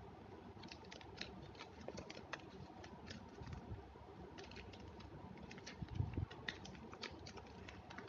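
Faint scattered clicks, taps and rustles of school stationery being handled: a plastic pencil box and notebooks picked up and set down on a stone floor, with a louder soft knock about six seconds in.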